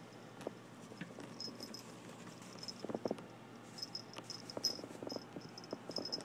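A Chihuahua puppy's paws and claws tapping and scrabbling as it moves about on a cushion and steps off onto a hard floor, busiest in the second half. A faint high chirping repeats in short pulses throughout.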